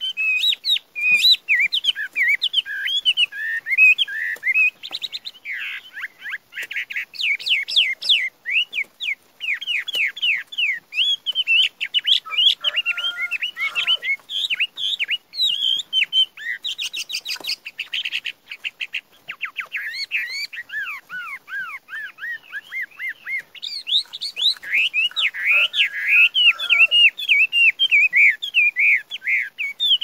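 Chinese hwamei (Garrulax canorus) singing without a break: a varied song of whistled phrases, with fast runs of repeated sliding notes.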